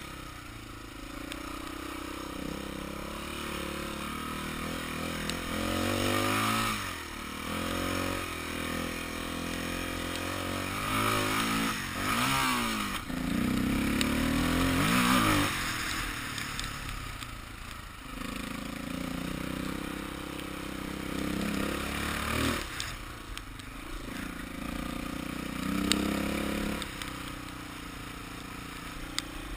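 Dirt bike engine heard from on board as it is ridden over a dirt trail, its pitch rising and falling with repeated bursts of throttle. The loudest surges come about halfway through. There is a sharp knock a little before the end.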